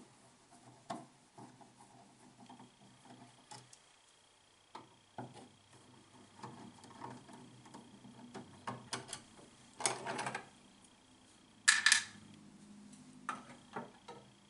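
Screwdriver turning out the screws of a light-switch wall plate, with small clicks and scrapes of metal on metal and plastic, then two louder scraping rattles near the end as the plate comes off the switch box.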